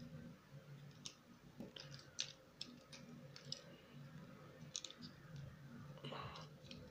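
Faint, irregular clicks of a plastic Transformers Battletrap action figure being handled, its arm and body parts being turned and pegged into place.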